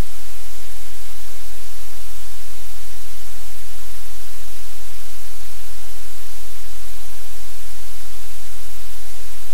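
Loud, steady hiss of static-like noise with a low rumble beneath it, unchanging throughout, with no distinct sounds standing out.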